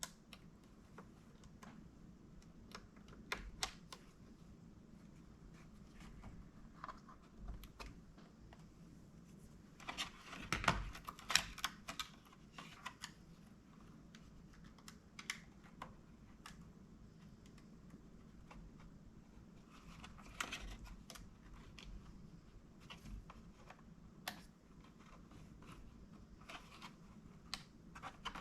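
Scattered light plastic clicks and taps from a laptop keyboard being pressed and snapped into place in the chassis. There is a dense run of clicks about ten seconds in and another about twenty seconds in.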